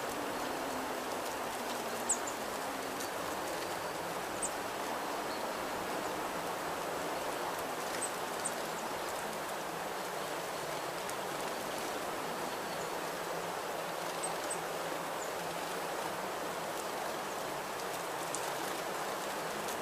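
Steady outdoor rushing noise, with short high-pitched chirps from small birds a handful of times, some in quick pairs.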